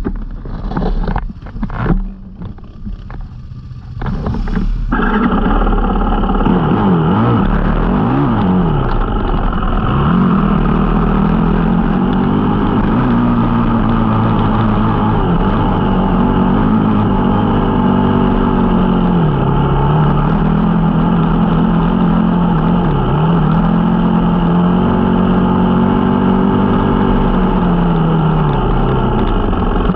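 Yamaha sport quad's engine heard up close from the handlebars: quieter with a few knocks for the first few seconds, then from about five seconds in running hard under throttle, its pitch rising and falling again and again as the rider accelerates and eases off.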